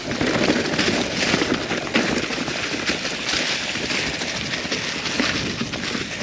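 Norco Sight mountain bike ridden down a dirt trail: tyres rolling over dirt and rock, with a steady clatter of small knocks and rattles from the bike and wind on the microphone.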